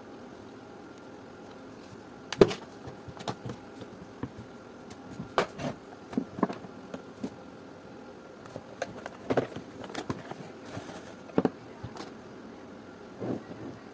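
Irregular clicks and knocks of hard plastic parts of a garment steamer being handled and fitted together by hand, over a faint steady hum.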